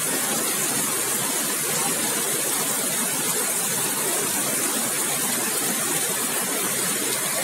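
Heavy monsoon rain pouring onto a wet asphalt road, a steady, even hiss of the downpour.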